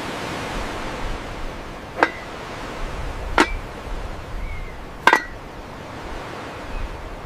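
Three sharp metallic clinks about a second and a half apart, the last one doubled, as a metal lid on a stone pedestal is lifted and dropped shut. Under them runs a steady background hiss.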